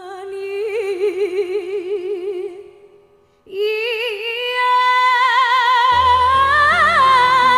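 A woman singing amplified through a PA, holding long ornamented notes with a wide vibrato over no accompaniment, in Sundanese pop style. Low sustained band accompaniment comes in about six seconds in.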